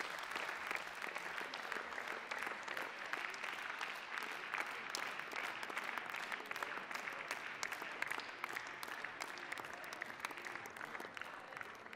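Large audience applauding steadily, slowly dying away toward the end.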